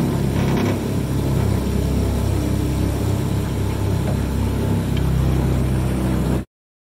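Motorboat engine running steadily at a constant pitch; it cuts off suddenly near the end.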